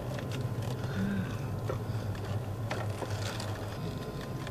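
Car engine and road noise heard inside the cabin while driving: a steady low hum, with a few faint clicks.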